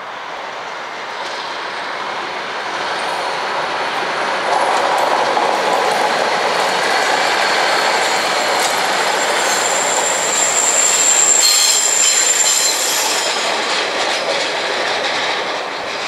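Northern class 156 diesel multiple unit running past on curved track, growing louder as it nears. At its loudest, about ten to thirteen seconds in, a thin high wheel squeal rings out over a run of clicks from the wheels crossing rail joints.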